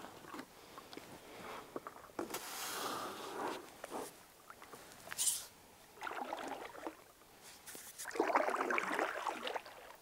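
Paddle strokes splashing and sloshing in shallow water beside an inflatable stand-up paddleboard as it is pushed off and paddled from the shore, in a few separate bursts, the loudest near the end.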